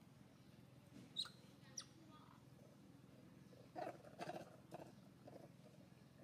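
A few faint, short animal squeaks and chirps, scattered near the start with a small cluster about four seconds in, over a low steady hum.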